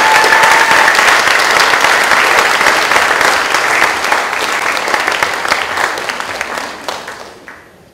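Audience applauding, a dense clatter of many hands that fades away over the last two seconds or so.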